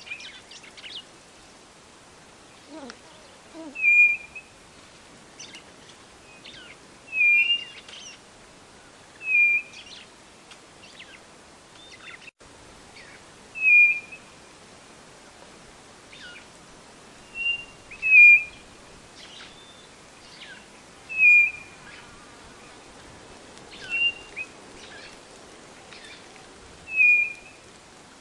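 White-bellied nothura (codorna-do-nordeste) calling: a short whistled note repeated about every three seconds, about ten times, with fainter quick high chirps in between.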